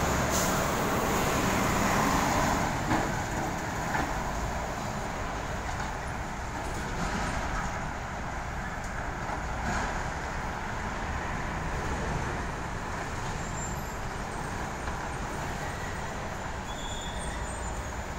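Road traffic: heavy lorries and container trucks driving past with engine and tyre rumble, loudest in the first few seconds as a flatbed lorry and cars pass close, then a steadier, quieter traffic rumble.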